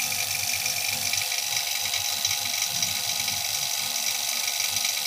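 Electric refrigeration vacuum pump running steadily, a constant machine whine with a fine rapid flutter underneath, as it pulls an air conditioner's lines and compressor down to vacuum near the end of evacuation before recharging with refrigerant.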